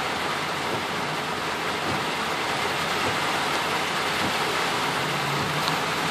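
Heavy rain beating steadily on a car's roof and windshield, heard from inside the cabin.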